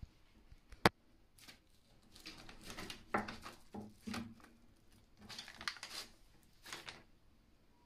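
A sharp click about a second in, then the crinkling and rustling of the white paper under raw meat on the bone as a hand handles and lifts a piece off it, in a run of short crackly bursts.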